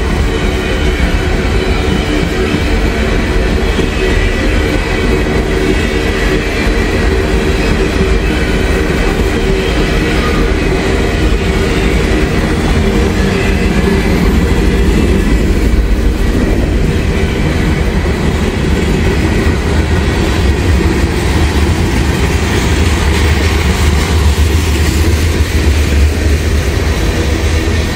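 Freight train passing, with a steady rumble of wheels rolling on the rails.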